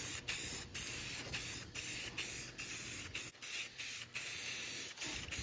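Aerosol can of Rust-Oleum high-heat engine enamel spraying light coats of paint onto a steel oil pan: a hiss broken by many brief gaps.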